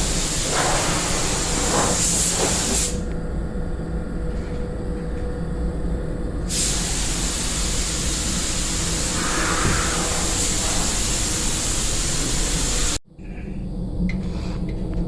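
A steady spraying hiss with a low hum beneath it, broken by abrupt edit cuts about three seconds in and again near the end.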